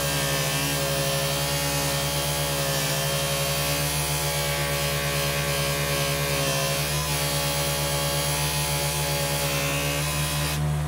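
Bench grinder motor running steadily with its wire wheel brushing against a screwdriver's steel shaft, a constant hum under a fine scratching rasp as the shaft is cleaned. The scratching drops out for a moment near the end as the shaft is repositioned on the wheel.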